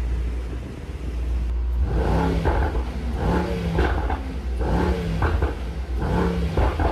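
Mercedes-AMG GT63 S twin-turbo V8 idling with a low rumble, then revved sharply about five times from about two seconds in. These are stationary revs, capped at 4,000 rpm, through an exhaust fitted with a petrol particulate filter (OPF).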